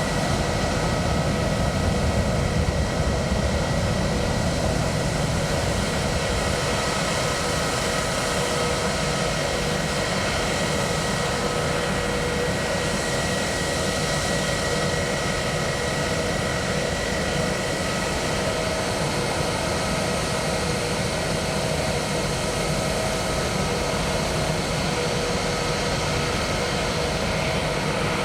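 Jet airliner engines running steadily: a constant rumble with a steady high whine.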